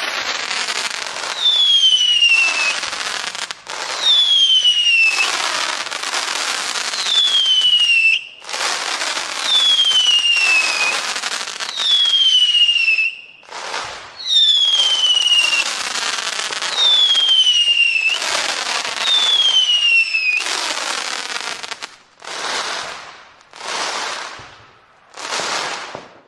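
Fireworks going off in quick succession: about seven whistles, each falling in pitch over a second or so, over a dense crackling hiss, then three shorter crackling bursts near the end.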